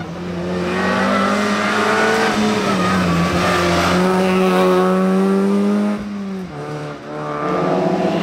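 Competition car engine at high revs under hard throttle for about six seconds, its pitch rising slightly; about six seconds in the revs dip briefly, then climb again.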